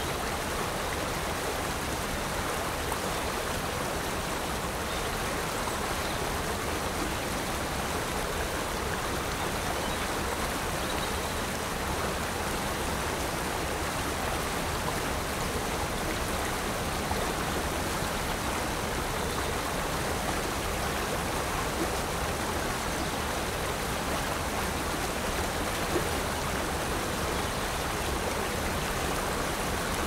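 Mountain stream rushing steadily down small rock cascades and waterfalls.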